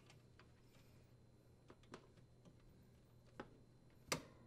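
Faint handling clicks as plastic wire nuts are twisted onto the dishwasher's power wires: a few light ticks, then one sharper click near the end, over near silence.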